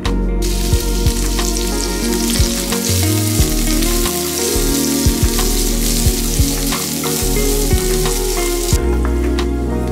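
Diced meat sizzling in a hot oiled frying pan while it is stirred with a silicone spatula, with scattered light taps of the spatula on the pan. The sizzle starts about half a second in and cuts off near the end.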